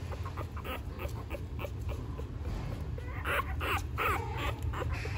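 Newborn puppies squeaking and whimpering while huddled against their mother, in short high calls that bunch into a louder run about three to four seconds in.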